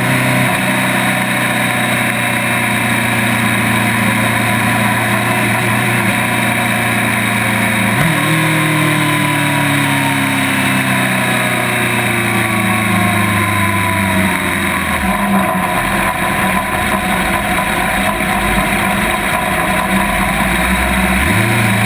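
Honda CB1000's inline-four engine heard from its crash bar, with steady wind and road hiss. The engine note falls as the bike slows, jumps up once about 8 seconds in and falls again, settles to low running, and rises briefly near the end.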